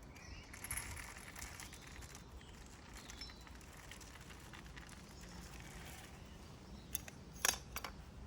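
Bird feeders being handled: faint rustling, then a few sharp clicks near the end.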